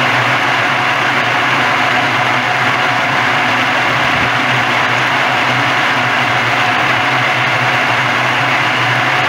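Walnut husk peeling machine running steadily, a constant low hum under a dense mechanical rush.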